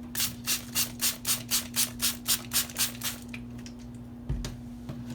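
A Maxamet steel knife blade drawn across a Venev diamond sharpening stone: about a dozen quick, even rasping strokes, about four a second, that stop about three seconds in, followed by a single dull thump.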